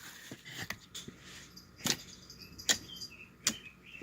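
A series of sharp clicks or taps, three strong ones less than a second apart in the second half, with fainter ones before them.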